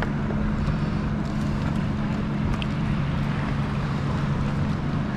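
Outboard motor idling with a steady low hum, under wind and water noise.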